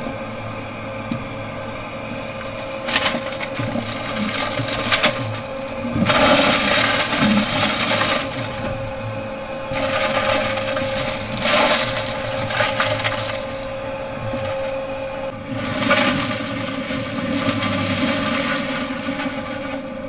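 Vacuum cleaner running steadily with a constant motor hum, while crunchy debris crackles and rattles up the nozzle in several louder stretches.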